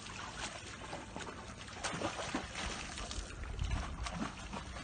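Steady rushing noise of wind and water on open sea, with a low rumble underneath and a few short splashy crackles.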